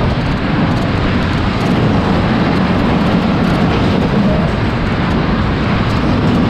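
New York New York funfair ride in motion, heard from on board: a loud, steady rumble with wind buffeting the microphone.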